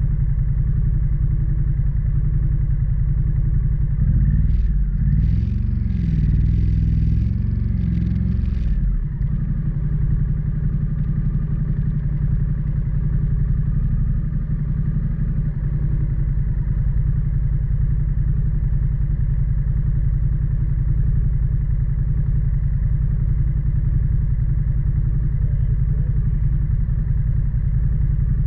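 Motorcycle engine running steadily at cruising speed, with a strong low rumble of wind and road noise. From about four to nine seconds in, the sound gets rougher and louder, with a few short hissing bursts.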